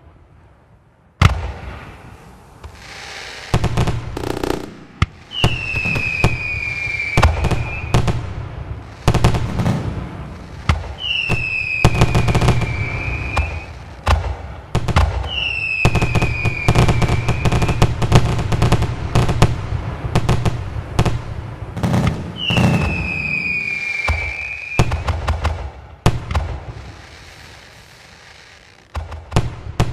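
Fireworks display: a rapid string of bangs and crackles from bursting shells, the first loud bang about a second in. Four slightly falling whistles from whistling fireworks rise above the bangs along the way.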